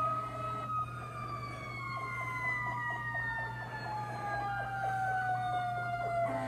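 Fire engine's Federal Q mechanical siren winding down, one long wail falling steadily in pitch, played through computer speakers and re-recorded, over a steady low hum.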